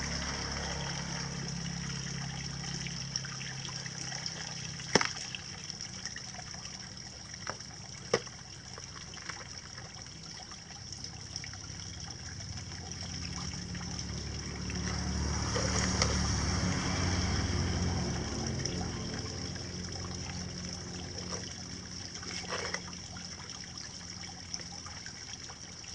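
Steady trickle of running water that swells louder in the middle, with a few sharp clicks from hands handling the coconut seedling and working damp soil in a plastic pot.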